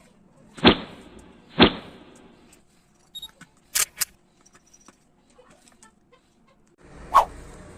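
Two sharp knocks about a second apart, a few light clicks, then another sharp knock near the end.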